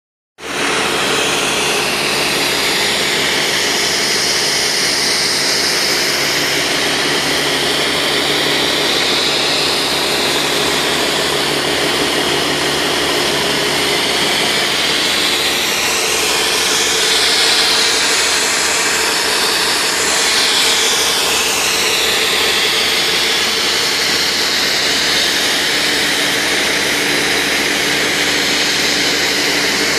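Compressed air foam jetting from a fire engine's bumper turret nozzle: a loud, steady hiss, over the steady drone of the engine and pump. The hiss wavers in tone about halfway through.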